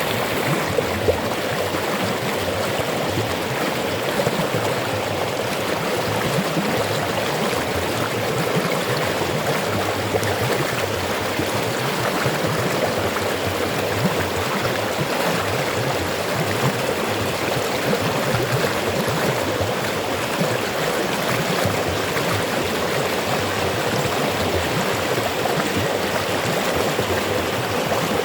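River water flowing and rushing over rocks: a steady, unbroken rush.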